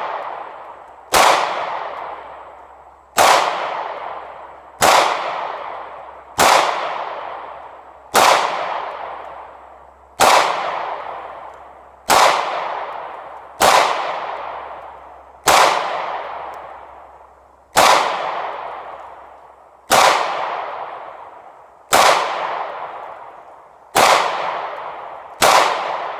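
Taurus PT111 9mm pistol firing about fourteen single shots at a steady pace, roughly one every 1.5 to 2 seconds, each shot trailing off in a long echo. The shooter works through the magazine, which he clears right afterwards.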